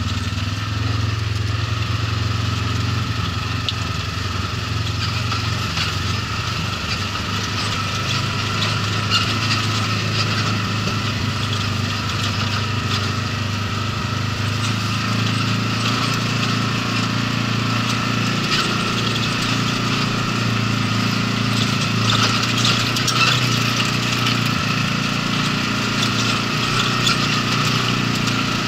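Polaris RZR side-by-side's engine running steadily at low trail speed, heard from inside the open cab, with light rattling and clicking as it crawls over rough ground.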